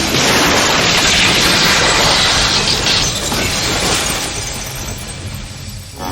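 Action-film sound effects: a loud, dense crash of noise that dies away over the last two seconds.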